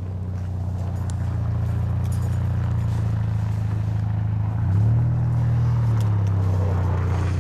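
A car engine running close by with a steady low drone, its pitch stepping up a little about five seconds in.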